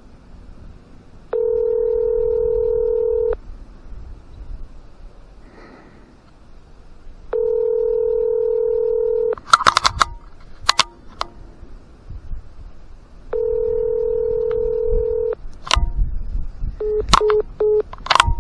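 Telephone ringback tone: an outgoing call ringing at the other end, heard through the phone. There are three steady two-second rings a few seconds apart, with sharp clicks after the later rings and three quick beeps near the end.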